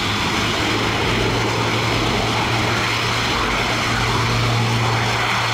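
Airbus A400M's four turboprop engines running, a steady propeller drone with a constant deep hum and no change in pitch.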